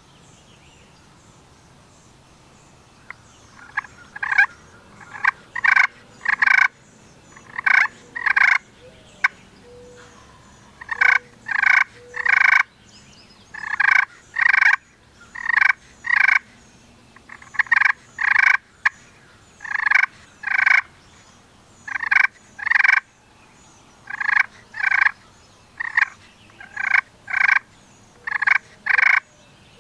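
Wild turkey calling: loud, short notes, mostly in pairs, repeating every second or two from about four seconds in.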